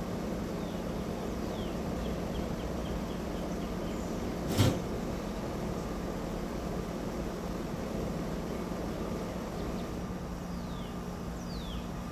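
Faint birds singing at sunrise over a steady low rumble and hum: a few quick descending chirps and a short rapid run of notes. About four and a half seconds in, a single sharp knock is the loudest sound.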